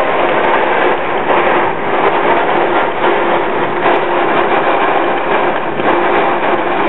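Hurricane wind and rain beating against window glass, a loud, steady rushing noise heard from inside the apartment.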